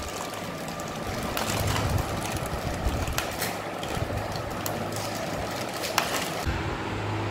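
Crunchy Kurkure snack sticks and chopped vegetables rustling and crackling as a hand stirs and breaks them on a plastic tray, with a foil snack packet crinkling and scattered sharp clicks.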